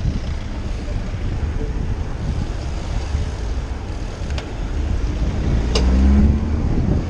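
Wind buffeting the microphone on a fast-moving bicycle, over the rumble of passing traffic. The traffic swells about six seconds in, with a sharp click just before.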